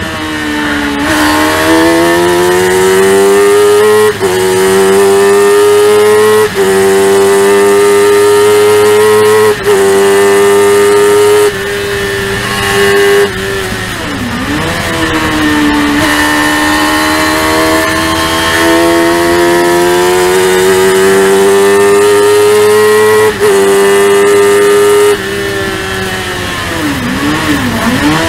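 Race car's high-revving 1000 cc motorcycle engine at full throttle, heard from on board, climbing in pitch and cut briefly by several quick upshifts in the first dozen seconds. It then holds a long climb in top gear, and near the end comes off the throttle for braking, with quick blips on the downshifts.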